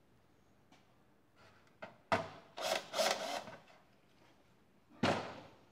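Cordless drill driving screws through the mesh varroa screen into a polystyrene hive floor: a longer run of about a second and a half, two seconds in, and a second short burst near the end.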